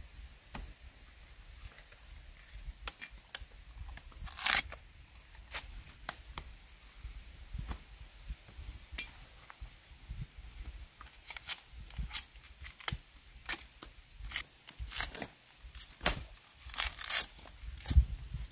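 Bamboo shoot husks being peeled off by hand: irregular tearing and crackling strokes, with a few louder rips.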